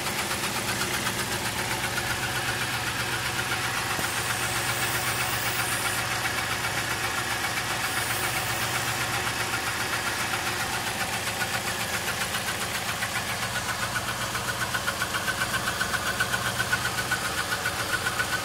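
1999 Lincoln Town Car's V8 running at idle and sputtering, with a steady uneven pulse. It is misfiring, with codes for misfires on cylinders 4 through 8 and a lean condition on both banks.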